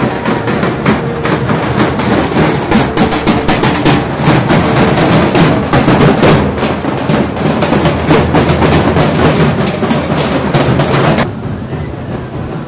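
A group of large barrel drums (dhak) beaten together in a loud, fast rhythm. The drumming cuts off suddenly about eleven seconds in, leaving quieter street noise with a faint steady hum.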